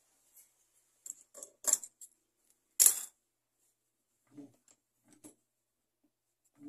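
Fabric being handled and laid flat on a sewing machine table: a few short rustles and sharp clicks, the loudest about three seconds in, followed by a few softer knocks. The sewing machine is not running.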